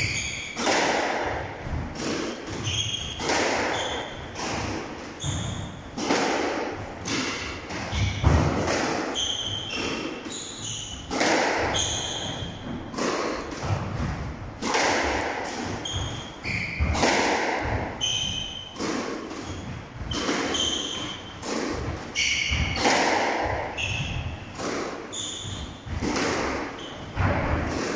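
Squash being played: the ball is struck by rackets and smacks off the court walls in a steady run of sharp impacts. Court shoes squeak briefly on the wooden floor between shots.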